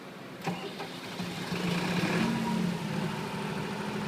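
Super-silent 50 kVA diesel generator set starting up. There is a sharp click about half a second in, then the engine catches, its sound swelling to a brief peak around two seconds and settling into a steady, even running hum.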